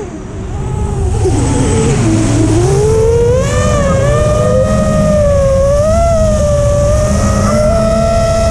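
FPV quadcopter's electric motors and propellers whining. The pitch drops steeply at the start as the throttle is cut, with the quad upside down in a flip, stays low for about two seconds, then climbs back and holds a steady, wavering whine as it cruises, over a low rumble.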